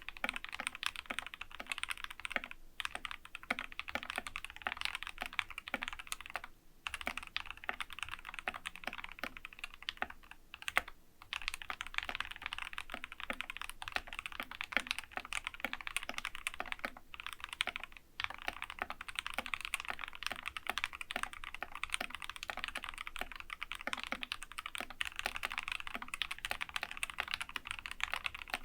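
Typing on a Skyloong GK61 keyboard fitted with Gateron Yellow optical linear switches, lubed and filmed, with clipped and lubed stabilizers and a case dampener: a fast, continuous clatter of keystrokes broken by a few short pauses.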